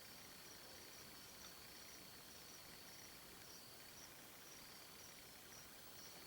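Faint insects calling: a steady high trill, with a second insect's chirps repeating about twice a second just above it.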